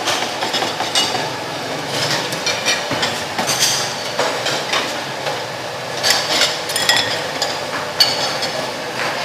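Wire noodle strainer knocking against a stainless steel stockpot and porcelain bowls clinking, several sharp clinks about three to four seconds in and again near the end, over a steady background din.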